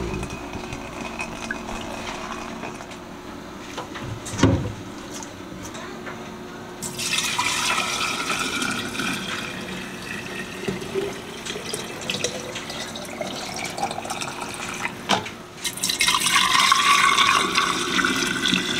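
Beef meat stock poured from a stainless steel stockpot through a funnel into a glass mason jar, in two long pours with a short break between them. A single knock sounds about four seconds in.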